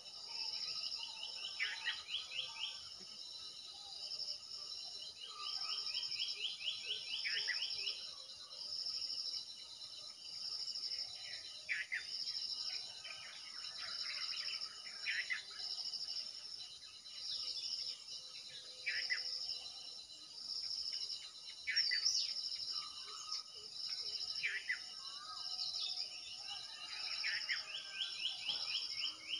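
Insects calling in a high pulse that repeats about once a second, with a few longer fast trills, while birds chirp now and then.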